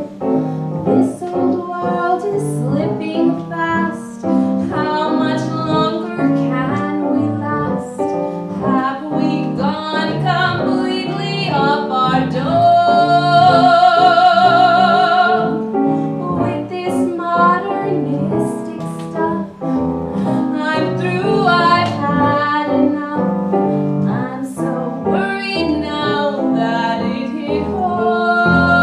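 A woman singing in an operatic style with a wide vibrato, over piano accompaniment, with a long held high note about halfway through.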